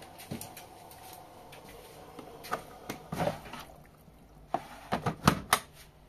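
Several sharp clicks and knocks, the loudest cluster near the end, over a faint steady hum that dies away about halfway through.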